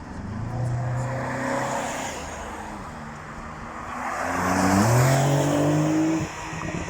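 Car engines accelerating hard: one engine note rises and fades about a second in, then a louder one climbs in pitch through a gear change, peaks about five seconds in and cuts off suddenly near the end.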